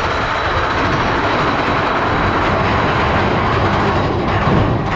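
Mine-train roller coaster cars of Big Thunder Mountain Railroad rumbling and clattering steadily along the track, heard from on board the moving train.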